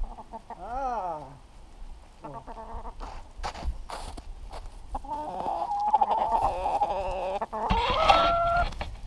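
Domestic hen clucking and squawking: a quick run of wavering calls about a second in, a few shorter calls a second later, then a long wavering squawk from about halfway that rises in pitch near the end. Short knocks and clicks sound here and there between the calls.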